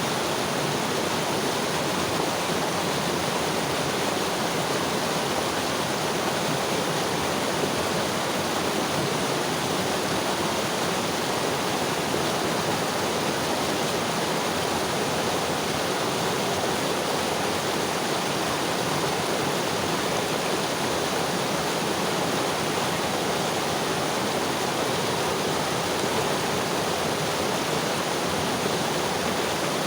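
Mountain river flowing over rocks, a steady rushing and splashing that stays even throughout.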